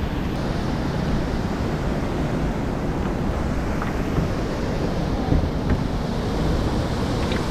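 Steady rush of the river's whitewater, with wind rumbling on the microphone.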